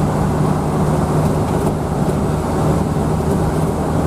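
Steady low drone of a moving bus, its engine hum mixed with road noise.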